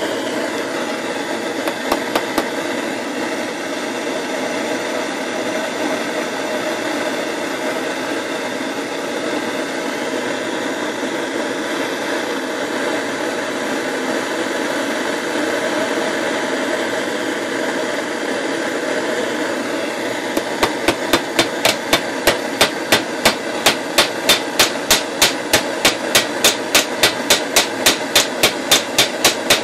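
A propane torch burning with a steady rush while a nail is heated in its flame. About two-thirds of the way in, a fast, even run of hammer blows starts, about three a second, metal on metal, as the red-hot nail is hammered over on the steel vise to form a hinge loop.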